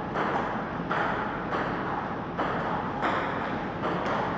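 Table-tennis rally: the celluloid ball knocks off the paddles and table in a steady back-and-forth, about one knock every three-quarters of a second, over a steady background hiss.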